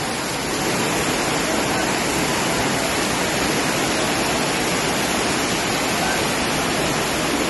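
Heavy storm rain pouring down: a steady, unbroken hiss of downpour and running water.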